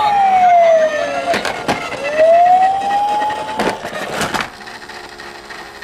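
Toy police car's electronic siren wailing: one slow fall in pitch, then a slow rise, cutting off just under four seconds in. A few sharp knocks sound during and just after it.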